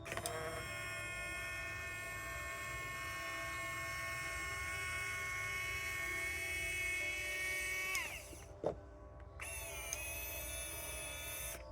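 Electric linear actuator motor whining steadily as it drives a table saw lift. It runs about eight seconds, then winds down and stops. A sharp click follows, and the motor starts again a second or so later, running for about two more seconds before it stops near the end.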